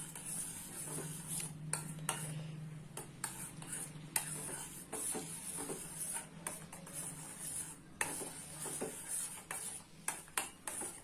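Spoon stirring hot milk with melting jaggery in a pot, scraping and clinking irregularly against the pot over a steady hiss.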